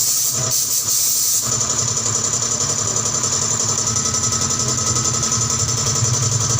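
A steady hiss, joined about a second and a half in by a motor running with an even, steady hum.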